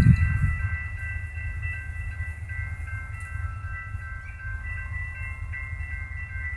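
Railroad crossing warning bells ringing steadily at a grade crossing, with a low rumble underneath that is loudest at the start and then eases off.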